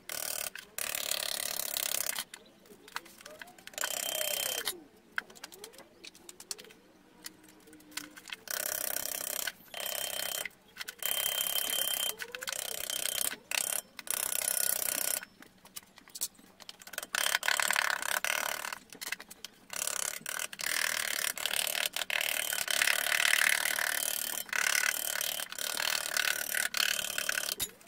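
A small ball-peen hammer taps rapidly on gasket paper laid over a rear differential housing's cover flange, in runs of a second or two with short pauses between them. The taps against the metal edge and bolt holes cut the gasket to shape.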